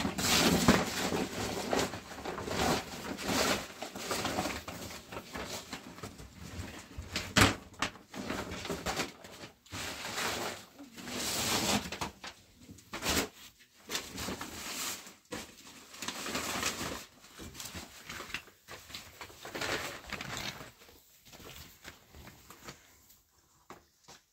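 Woven plastic sacks being handled, shaken out and spread on the floor, rustling and crinkling in irregular bursts with a few sharp crackles.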